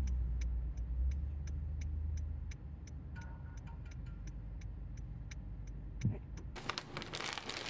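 A car's turn-signal indicator ticking steadily, about two clicks a second, over the low rumble of the idling engine heard inside the cabin. The rumble eases about two and a half seconds in.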